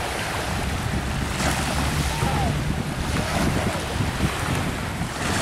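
Wind buffeting the microphone: a steady rush with an uneven, gusty low rumble.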